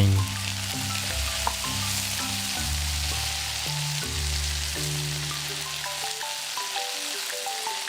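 Chopped vegetables sizzling in hot olive oil in a pan as they are stir-fried.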